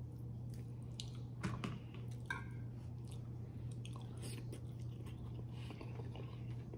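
Close-up chewing and mouth sounds of a person eating, with scattered short clicks and smacks, the most distinct about a second and a half and two seconds in. A steady low hum runs underneath.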